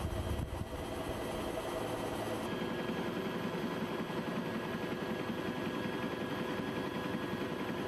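Steady aircraft engine drone heard from inside the cabin, a continuous noise with a few steady whining tones running through it. The high hiss drops a little about two and a half seconds in.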